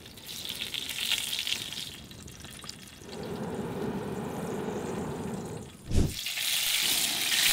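Sizzling and hissing as an oil-and-lemon basting liquid is brushed onto a leg of lamb hanging over a wood fire and drips into the flames. In the middle there is a duller rushing noise, and about six seconds in a brief low thump, after which the hissing grows louder.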